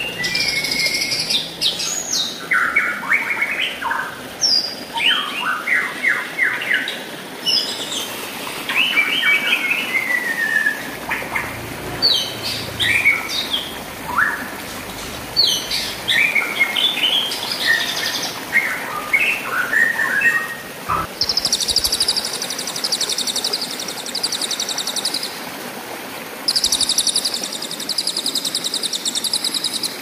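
White-rumped shama singing a varied run of short whistled, slurred and chattering phrases over the steady rush of a stream. From about two-thirds of the way in, a long, fast, buzzing trill comes twice, a few seconds each time.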